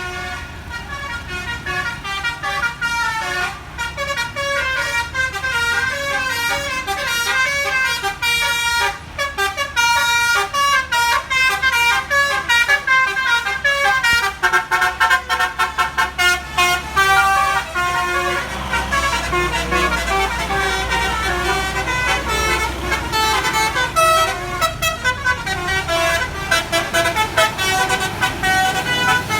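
Bus telolet 'basuri' melody horn playing a fast tune of quickly stepping tones, over the low running of a bus engine that swells past the middle.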